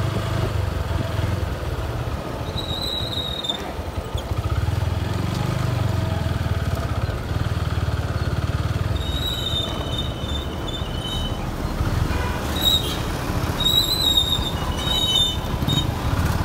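Motorcycle engine running at low road speed, with wind rush on the microphone. Brief high-pitched squeals come a few times, clustered near the middle and toward the end.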